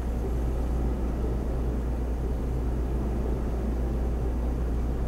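Steady low machine hum with a dense rumbling noise, unchanging, as of laboratory equipment such as an ultramicrotome running.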